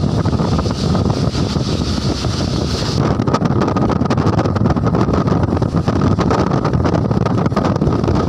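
Wind buffeting the microphone over the road noise of a moving vehicle: a loud, steady rumble. A higher hiss drops away about three seconds in.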